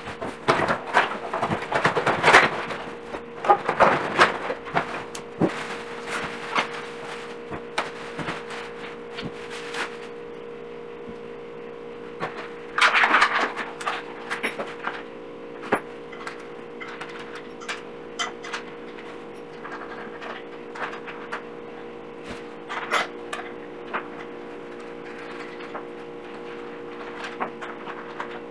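Plastic wrapping and cardboard box flaps rustling and crinkling as packed furniture is pulled out and unwrapped. The crackling is busiest in the first ten seconds, with another loud burst about thirteen seconds in, then thins to scattered clicks and knocks. A steady low hum runs underneath.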